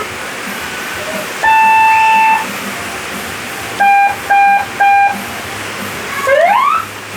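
Seven-sound electronic horn on a Yamaha NMAX scooter, cycling through its tones. There is one long beep about a second and a half in, three short beeps around four seconds in, and a quick rising whoop near the end, all over a steady hiss.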